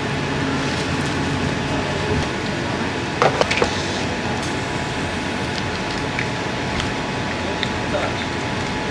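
Steady room hum of a convenience store's ventilation and coolers. A short cluster of clicks and rustles comes about three seconds in, and a few faint ticks come later, as instant-noodle cups and packets are handled.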